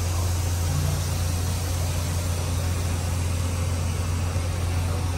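Steady low machine hum with an even hiss of air over it, unchanging throughout.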